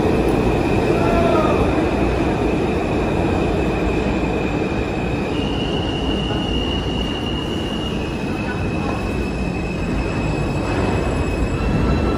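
Subway train running, heard from inside the car: a steady rumble with a thin, high wheel squeal that steps up in pitch about halfway through and drops back a few seconds later.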